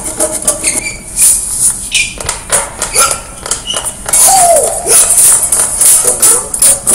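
Rock-and-roll performance recording with a quick, even rhythm of jingling percussive hits, about four to five a second, and a short voice cry sliding down in pitch midway.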